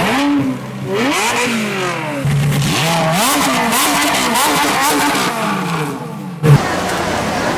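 A high-revving car engine revved again and again, its pitch climbing and dropping in a series of sweeps. A sudden loud hit comes near the end, after which the engine sweeps give way to a busier background sound.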